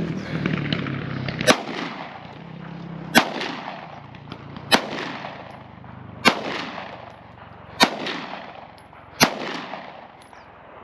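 Six single gunshots from a firearm, evenly spaced about a second and a half apart, each sharp crack followed by a fading echo. A low steady hum sounds under the first shot and stops about a second and a half in.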